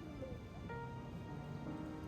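Background music: soft held notes changing every half second or so over a low, steady bass.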